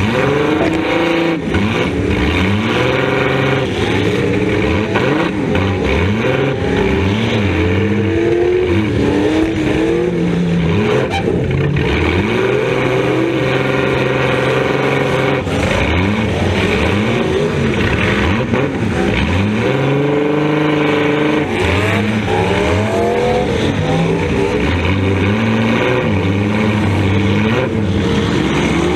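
Demolition derby car's engine heard from inside its stripped-out cabin, revving up and down continuously as the car drives and reverses, with a few sharp knocks along the way.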